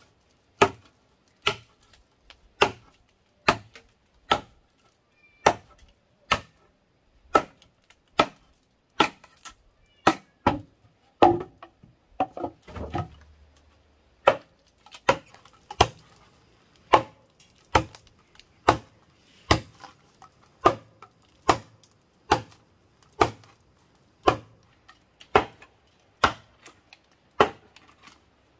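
Steady chopping: sharp single blows about one a second, with a brief run of quicker, lighter knocks around the middle.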